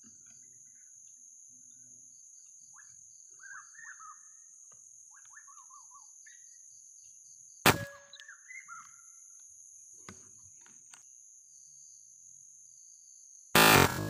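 A steady high-pitched insect drone with short bursts of chirping bird calls, a sharp click about halfway through, and a loud rifle shot just before the end. The shot misses the bird, passing beside its neck.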